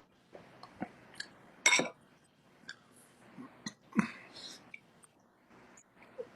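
Scattered short clicks and knocks over quiet background noise. The two loudest come about a second and a half and about four seconds in.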